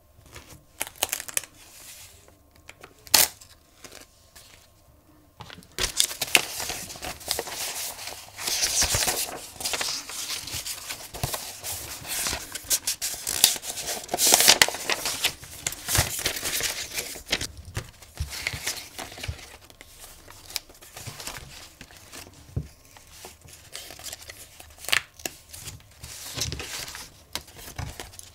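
Sheets of printed scrapbook paper rustling and crinkling as they are handled and shuffled by hand. A few sharp taps in the first seconds, then the rustling turns dense about six seconds in and grows lighter after the middle.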